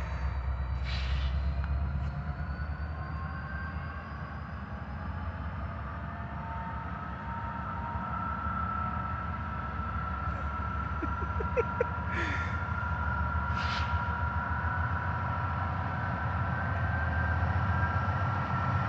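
Diesel freight locomotives, a BNSF GE Dash 8-40BW leading an EMD GP60M, powering up and pulling away: a steady heavy engine rumble with a whine that climbs slowly in pitch as the train gathers speed. A few short hisses come through, about a second in and twice in the second half.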